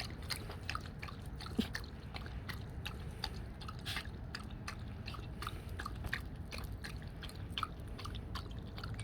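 A dog drinking water: irregular soft lapping clicks, several a second, over a low steady rumble.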